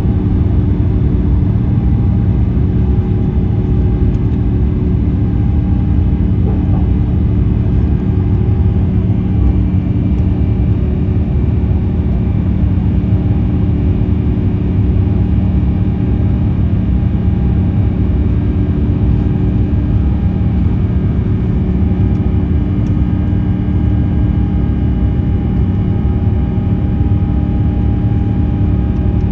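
Airbus A350-900 cabin noise heard from a passenger seat: the Rolls-Royce Trent XWB engines and airflow make a steady, loud rumble with several steady hums over it, unchanged in pitch and level throughout.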